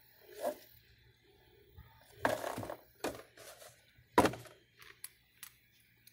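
Handling sounds of an old panel air filter and its cardboard filter box on the car: a short scrape about two seconds in, a light knock, then a sharp thunk a little after four seconds as the box is set down, followed by a few small ticks.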